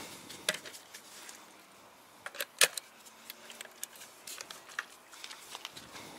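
Light metal and plastic clicks from handling an MJJC trigger spray gun and MJJC Foam Cannon Pro V2 while coupling them, with a sharp snap about two and a half seconds in as the brass 1/4-inch quick-connect fitting locks together.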